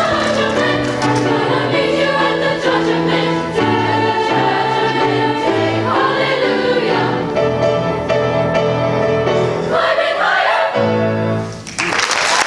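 Treble choir singing in harmony with piano accompaniment, closing on a final held chord that cuts off near the end. Audience applause breaks out right after the cutoff.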